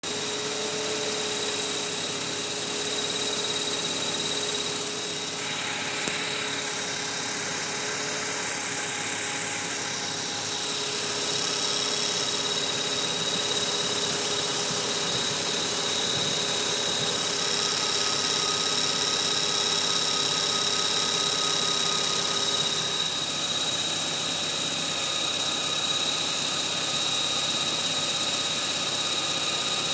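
Mazda RX-8's two-rotor Renesis rotary engine running with a steady high-pitched whistle over it. The owner suspects a loose drive belt.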